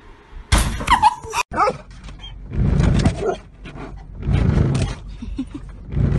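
A loud, short cry with a sliding pitch, then, after a brief break, a dog barking in repeated rough bursts inside a car's cabin.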